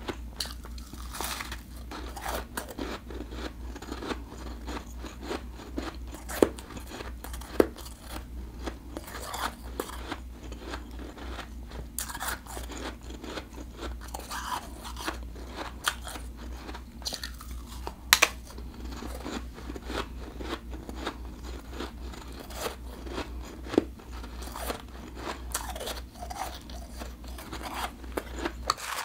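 Close-up chewing of a mouthful of refrozen blended (powdery) ice, a steady dense crunching with a few louder crisp snaps scattered through.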